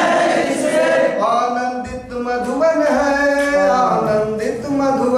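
A group of men singing a song together in unison.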